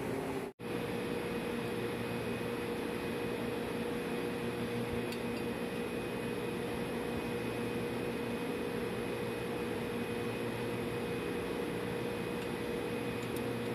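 Steady machinery hum with a constant whine, as in a running ship's refrigeration machinery space. The sound drops out for a split second about half a second in.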